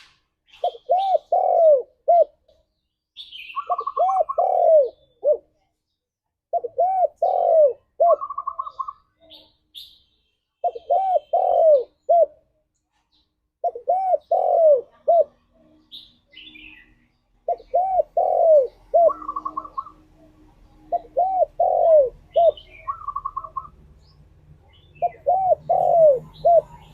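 Spotted dove cooing, repeating its phrase of several rounded coos with one higher note about every three to four seconds. Faint chirps of small birds sound between the phrases.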